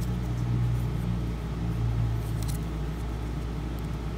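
Steady low machine hum, with a few faint light ticks about halfway through.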